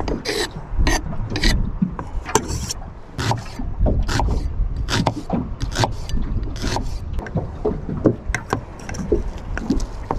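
Kitchen knife chopping on a wooden chopping board, a quick uneven run of knocks as fish fillet is diced and a red onion sliced, over a low steady rumble.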